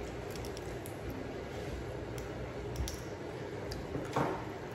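Cooked blue crab being eaten by hand: faint small clicks as the shell is picked apart, then a short, louder wet slurp about four seconds in as meat is sucked from the shell.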